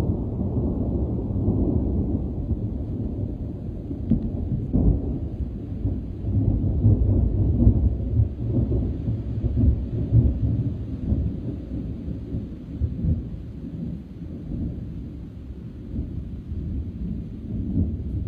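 Thunder rolling in a long, deep rumble that swells and subsides, loudest about seven to ten seconds in, with a few sharper surges.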